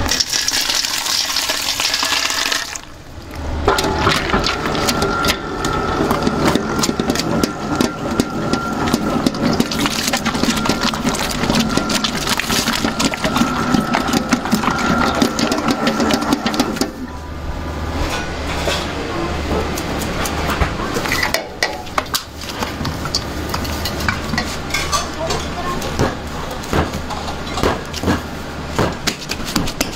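Water pouring into a steel mixer bowl for about three seconds. Then a bakery mixer's dough hook turns the dough with a steady motor hum and whine. In the last third, dough is pressed and slapped on a stainless-steel table in a series of irregular thumps.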